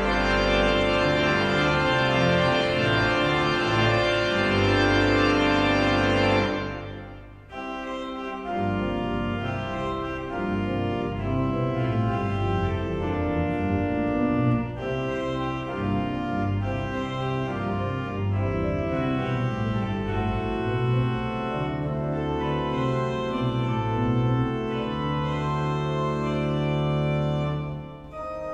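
Organ music playing sustained chords. It fades out about seven seconds in, then a new passage starts and carries on.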